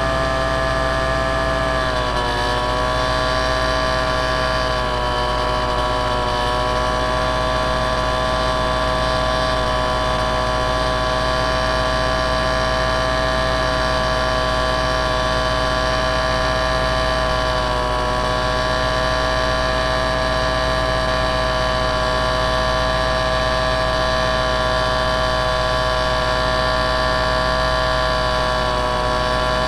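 Engine of a small aircraft running steadily, heard through a camera mounted on board, a constant whine over a low rush of air. Its pitch dips slightly about two seconds in and again near eighteen seconds.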